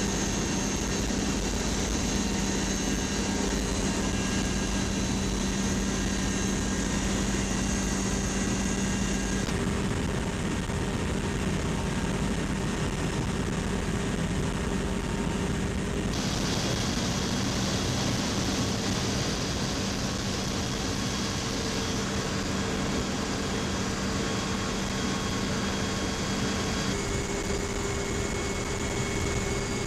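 V-22 Osprey tilt-rotor in flight: a steady drone of its turboshaft engines and proprotors, with a low steady hum. Its tone changes abruptly about 10, 16 and 27 seconds in.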